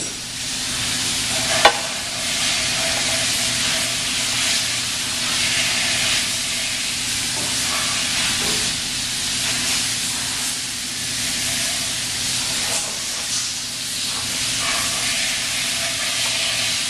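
Steady hiss of a machine shop's background noise over a low steady hum, with one sharp metallic click about two seconds in.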